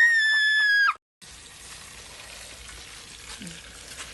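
A loud, high held note cuts off about a second in; after a brief gap comes steady sizzling of food frying in hot oil in a large cooking pot.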